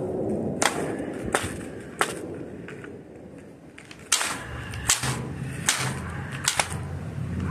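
A series of about seven sharp cracks like small-gun shots or hard strikes, irregularly spaced under a second apart. A low steady hum comes in about four seconds in.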